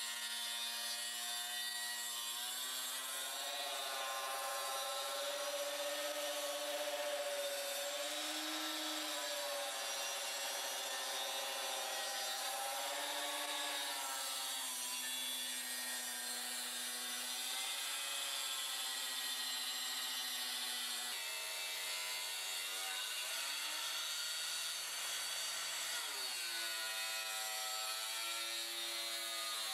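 Handheld electric circular saw with a diamond blade cutting a granite countertop, a continuous motor whine with grinding. The pitch sags and recovers as the blade is pushed into the stone, dropping lowest for several seconds about two-thirds of the way through before climbing back up.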